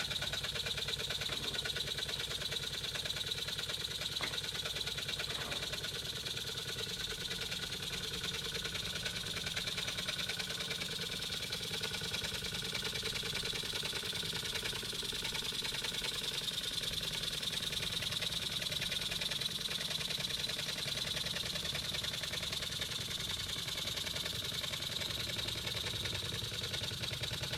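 Stuart S50 horizontal mill steam engine running on compressed air: a steady, rapid, even beat of exhaust with a constant hiss of air, its speed holding level.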